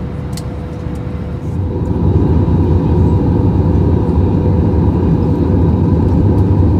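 Airbus A321 cabin noise in flight: a steady rush of engine and airflow with a faint steady hum. It grows louder about two seconds in, where the recording moves to the descent.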